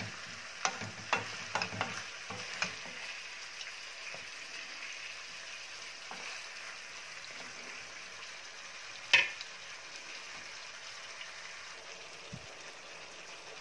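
Chicken pieces sizzling steadily in oil in a frying pan. A wooden spatula clicks and knocks against the pan while stirring during the first few seconds, and there is one loud knock about nine seconds in.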